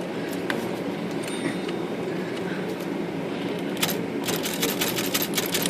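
Voss typewriter keys struck in quick succession, the type bars clacking about eight times a second from about four seconds in, over a steady background hum. The keys are being worked to free type bars gummed with oily dirt after a lacquer-thinner soak.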